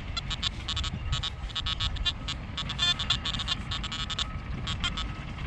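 Nokta Makro Anfibio metal detector giving a quick, irregular string of short high chirping target tones as the coil sweeps over ground with a lot of foil in it, over a low rumble.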